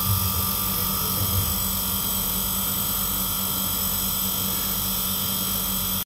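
Steady mechanical hum with a constant high hiss from a running motor or ventilation unit. It holds one even pitch and level throughout.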